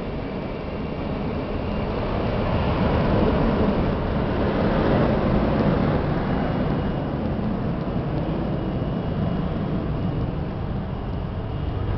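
Jet airliner engines running as aircraft taxi, a steady rushing noise with a faint high turbine whine, swelling for a few seconds in the middle and easing off again.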